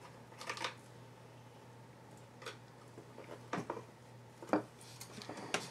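A handful of light, separate clicks and taps from craft supplies being handled on a work table, over a faint steady hum.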